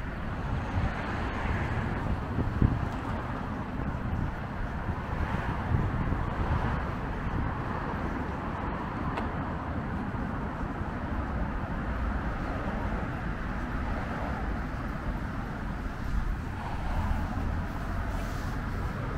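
City street ambience: a steady wash of road traffic noise with low rumble.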